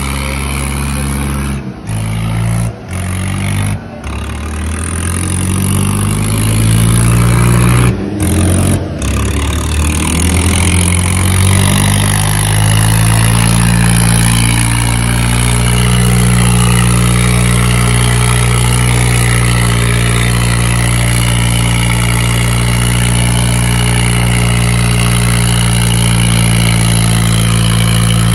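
Modified diesel tractor engine at full throttle under heavy load in a tractor tug-of-war, pulling hard enough to lift its front wheels. Its revs climb over the first dozen seconds, then hold steady and high. The sound cuts out sharply for a moment several times in the first nine seconds.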